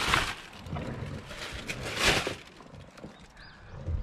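Someone climbing into a car's driver's seat, with a plastic bag rustling and a few knocks and bumps against the seat and door trim; the loudest bump comes about two seconds in.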